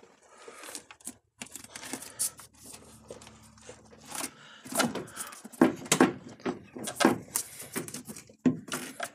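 Irregular knocks, clicks and scraping from a stuck plastic windshield cowl panel being pulled and pried loose by hand, with a run of louder clunks about five to seven seconds in.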